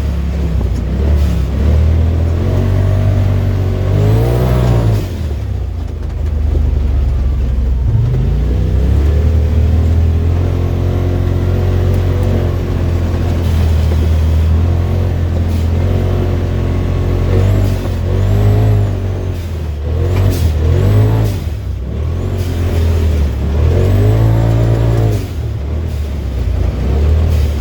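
Turbocharged Polaris RZR engine revved repeatedly, its pitch climbing and dropping several times, with a high turbo whistle rising and falling along with each rev. A few sharp hisses of air come as the throttle closes.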